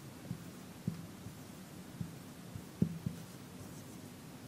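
Marker pen writing on a whiteboard: a few faint, irregular soft taps over a low steady hum.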